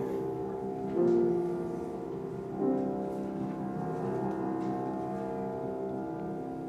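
Instrumental music of long, held chords that shift about a second in and again at about two and a half seconds.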